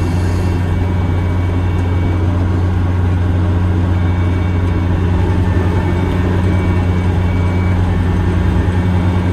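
Kubota ER470 combine harvester's diesel engine running steadily, an even, loud low hum heard from the operator's seat.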